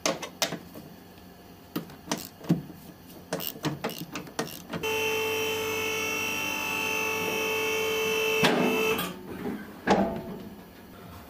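Metal clicks and knocks from a wrench working the strut-top nuts on a BMW E36's front suspension tower. Just under five seconds in, a steady mechanical whine starts abruptly, runs for about four seconds and cuts off, followed by a few more knocks.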